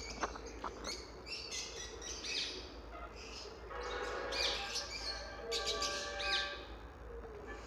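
Caged aviary birds chirping and calling, many short high chirps overlapping, with a few longer, layered calls around the middle.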